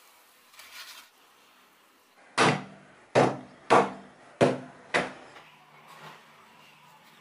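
Five sharp knocks about half a second apart, each with a short low ring.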